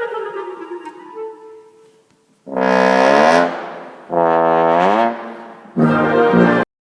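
A short excerpt of orchestral music for a low wind instrument, played alone: a fading note, then three long, loud notes that cut off suddenly at the end.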